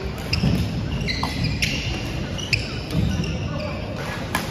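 Badminton rally on a wooden gym floor: sharp racket strikes on the shuttlecock every second or so, short high sneaker squeaks from the players' footwork, and dull footfalls, all echoing in a large hall.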